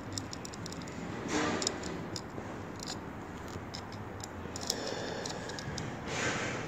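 Light, irregular clicks and scrapes of a tungsten electrode rod being handled against the abrasive disc of an angle grinder, with no motor running.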